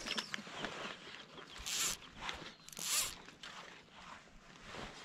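Fly line being pulled by hand through the rod guides: two short zipping hisses about two and three seconds in, over a steady rustle of gloves and clothing on the float tube.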